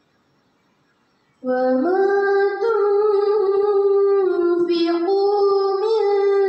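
A girl reciting the Quran in tarannum, the melodic chanted style. After a short silence she begins the words "wa mā" about a second and a half in, drawing them out into one long ornamented held phrase whose pitch steps up and down.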